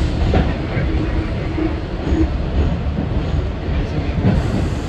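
R62A subway train running along the track, a steady low rumble with a few sharp clicks.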